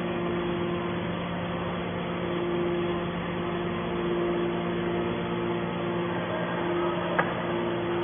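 Hydraulic metal baler's power unit (electric motor and pump) running with a steady hum, with one short click about seven seconds in.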